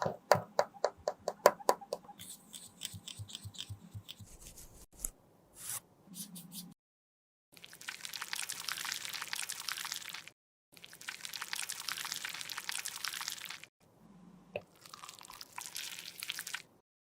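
Close-up sounds of cosmetic product being worked by hand. A quick run of sharp clicks comes first, then several abruptly cut stretches of crackly, squishy scraping and mixing.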